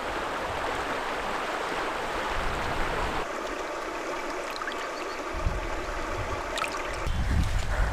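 Shallow mountain stream running over stones, a steady rushing of water; about three seconds in it turns to a closer, gentler babbling at the water's edge, and near the end wind rumbles on the microphone.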